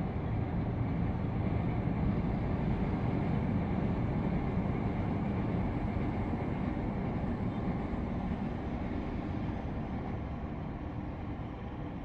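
Distant city traffic rumble, a steady low roar that swells a little in the first few seconds and eases off toward the end.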